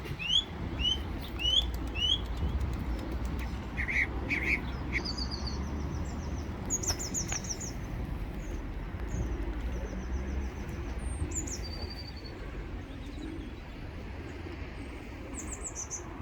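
Small birds chirping in short high notes: four quick rising chirps in the first two seconds, then scattered trills and single calls, over a steady low rumble.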